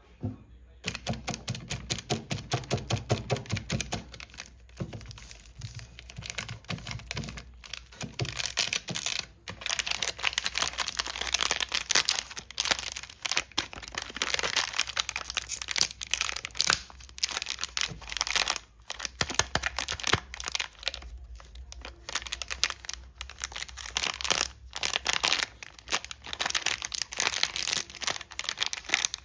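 Chocolate wrappers and packaging handled close up: a dense, continuous run of crinkling, rustling and tearing, with fast low knocks during the first few seconds.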